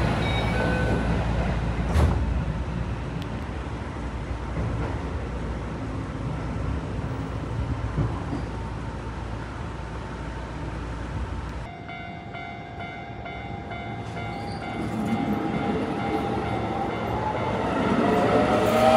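Electric train running on the rails, a steady rumble with one sharp knock about two seconds in. After an abrupt change partway through, the traction motors' whine rises steadily in pitch as the train picks up speed.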